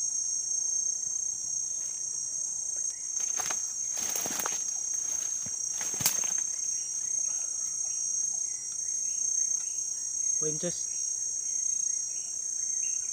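A steady high-pitched insect chorus from the forest, with a few brief sharp rustles or knocks between about three and six seconds in and a run of short repeated chirps in the second half.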